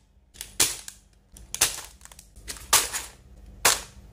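Sealed plastic bags of building bricks from a Qman kit set down on a hard tabletop one after another, four sharp crinkling slaps about a second apart.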